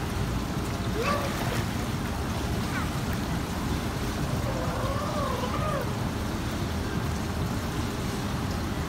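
A child's voice: a short call about a second in, then a longer wavering, sing-song call around the middle, over a steady low rushing noise.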